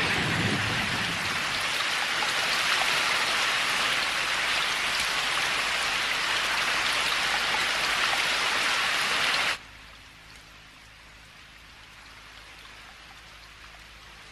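Heavy rain: a steady, loud hiss of downpour. About nine and a half seconds in it cuts suddenly to a much fainter, steady rain hiss.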